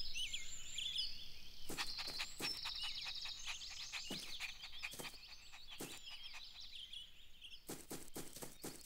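Outdoor birdsong ambience: small birds chirping and twittering, densest in the first few seconds. A number of soft taps are scattered through, clustered near the end.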